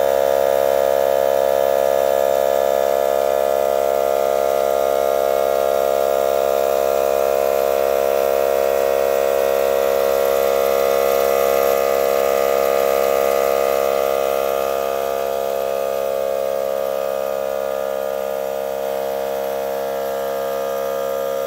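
Klughen pancake-tank electric air compressor running, a steady motor-and-pump hum that eases slightly in loudness about two-thirds of the way through.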